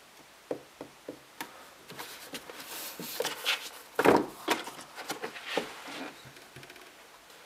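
Books being handled on a wooden shelf: light taps against the spines, then a paperback scraping as it is slid out and knocking against the shelf, loudest about four seconds in, with rustling as it is stood face-out.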